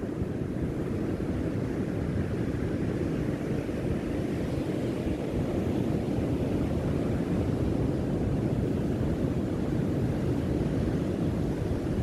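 Ocean surf breaking on a sandy beach, a steady low rumble mixed with wind gusting over the microphone.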